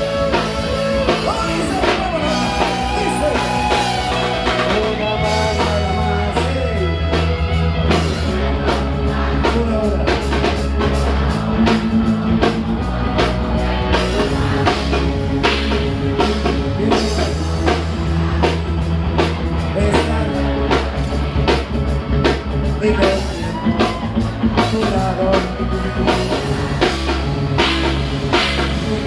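A live rock band playing through a stage PA: a drum kit keeps a steady beat under bass, electric guitar and a singer.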